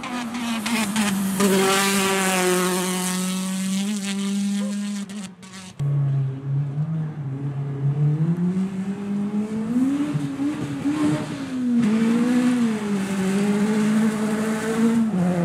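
Rally car engine running hard at high revs as the car comes past. After an abrupt cut about six seconds in, a rally engine is heard again, starting low and climbing, with the revs rising and dropping several times through gear changes.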